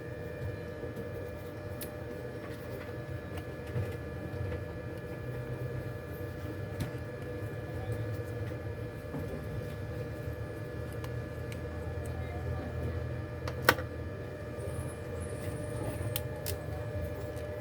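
Steady electrical hum with a few steady tones over a low rumble, and scattered light clicks, the loudest a single sharp click about three-quarters of the way through.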